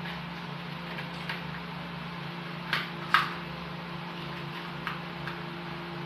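A few light clicks and knocks from handling the outlet parts and tools, the two loudest close together about three seconds in, over a steady low hum.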